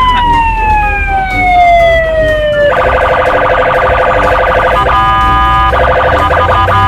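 Electronic police car siren: one long tone falling slowly in pitch, then switching a little over a third of the way in to a rapid warbling pattern, with a brief steadier stretch about five seconds in.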